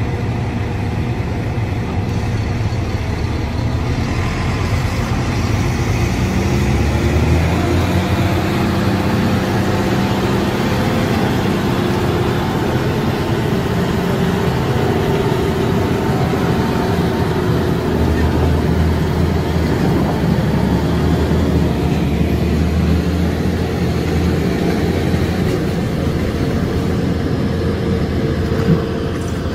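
A vehicle engine running steadily under load, its pitch rising and falling as it works. A single sharp click comes near the end.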